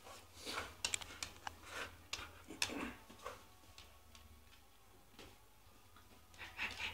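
Faint, irregular clicks and soft taps, spread unevenly and mostly in the first half, with a faint low hum underneath.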